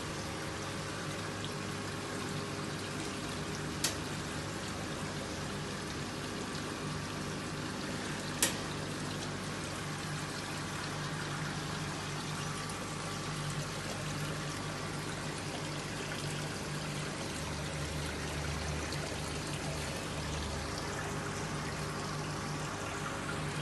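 Steady trickling and splashing of water circulating in a marine reef aquarium, over a low steady hum. Two sharp clicks, about four and eight seconds in.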